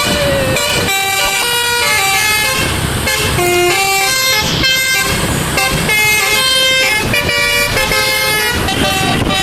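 A truck's telolet basuri musical air horn playing a fast tune, one clear horn note after another, changing pitch several times a second, with a low rumble underneath.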